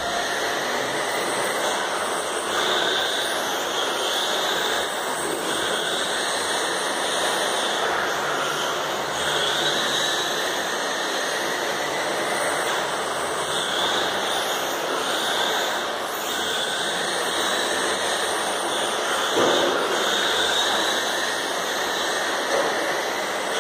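Electric radio-controlled touring cars racing: a high-pitched motor whine that swells and fades every second or two as the cars accelerate and pass, over a steady hiss.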